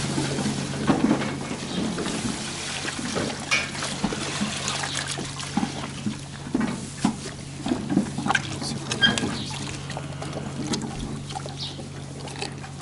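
Milk poured from a bucket into a metal trough while a row of calves drink from it, with irregular slurping, splashing and knocking against the trough. A steady low hum runs underneath.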